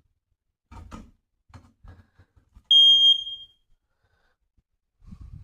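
Smoke alarm under test giving one loud, high-pitched beep about half a second long that fades out, about two and a half seconds in. A few soft knocks and rustles come before it.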